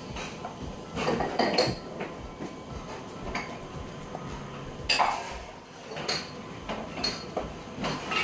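Tableware knocking and clinking: chopsticks and a soup bowl handled at a meal, with a few scattered sharp knocks, the loudest about a second in and again near five seconds.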